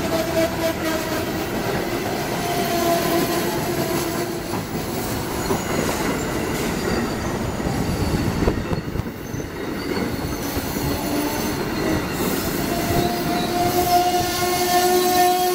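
Amtrak passenger train's stainless-steel Amfleet coaches rolling past at speed: a steady rumble of wheels on rail. A held tone sits over it at the start and comes in again, stronger, near the end.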